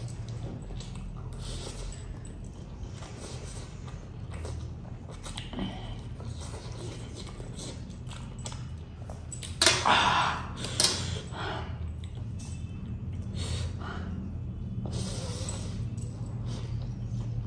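Close-up eating sounds: a man slurping and chewing spicy instant noodles, with small clinks from his fork and metal jewellery against a steel plate, over a steady low hum. One louder burst of noise comes about ten seconds in.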